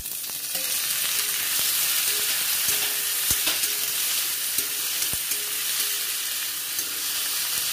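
Onions, garlic and fresh tomato wedges sizzling in hot mustard oil in a steel kadhai. The sizzle grows about a second in, and the steel ladle stirring them scrapes and clicks against the pan now and then.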